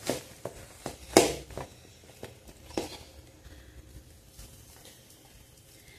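Hands kneading and squeezing a cassava-starch and cheese biscuit dough in a stainless steel bowl: a string of irregular soft slaps and knocks, the loudest a little over a second in, thinning out after about three seconds.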